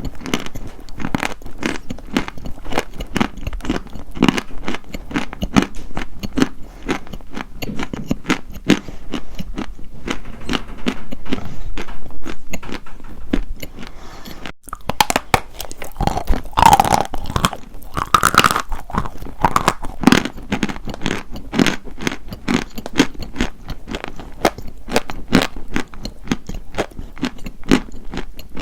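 Dry white chalk being bitten and chewed close to the microphone: a dense, continuous run of sharp crunches, louder for a few seconds just past the middle.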